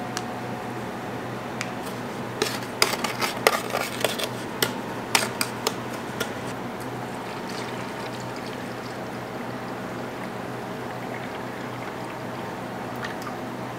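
Liquid poured into a clear plastic pitcher holding coffee and sugar, with a run of sharp ticks and splashes a few seconds in; milk is poured in afterwards.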